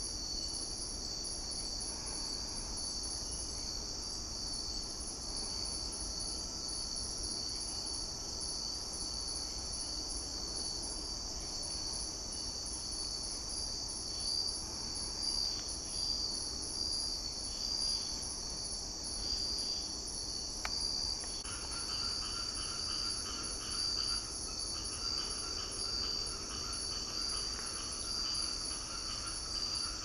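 Night chorus of insects in tropical forest: steady, high-pitched trilling. A second, lower pulsing call joins about two-thirds of the way through.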